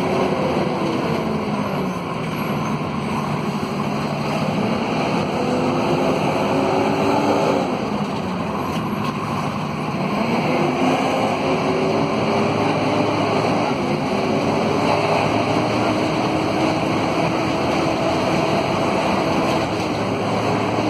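Interior sound of a Scania K230UB city bus under way: the five-cylinder Scania DC9 diesel and its howling radiator fan, with the pitch falling as the bus slows, then rising again as it pulls away through the ZF Ecomat automatic gearbox, twice over, with steady road and cabin rumble beneath.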